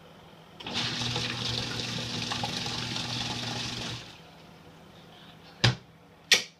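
Portable twin-tub washer's wash-tub pulsator running for about three seconds, the motor humming as it churns a little water to dissolve powder detergent, then stopping abruptly. Two sharp clicks follow near the end.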